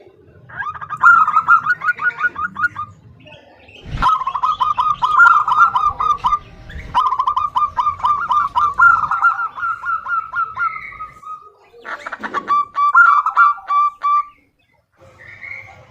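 Female zebra dove (perkutut) calling: four bouts of rapid, staccato repeated coo notes, about six a second, with short gaps between the bouts. A single sharp knock comes about four seconds in.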